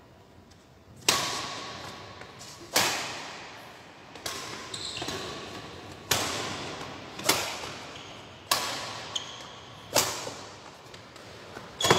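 Badminton rackets striking a shuttlecock back and forth in a rally, seven sharp hits about one every one and a half seconds, each ringing on in the echo of a large hall.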